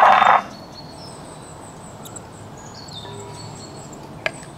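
Faint high-pitched chirping of birds and insects in the background, with a few light clicks near the end.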